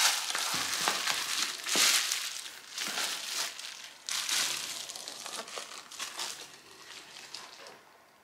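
Plastic bubble wrap crinkling and rustling in irregular bursts as it is pulled from a drawstring pouch and unwrapped from a camera lens; it stops shortly before the end.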